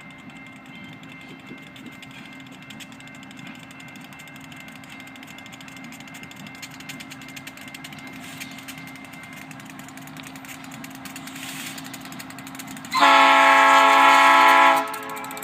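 Steady hum of a passing train, then near the end a locomotive air horn sounds one loud blast of about two seconds, several tones sounding together as a chord.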